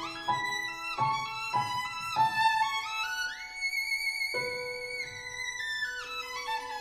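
Background music led by a violin playing slow, held notes, with a rising slide between notes about halfway through.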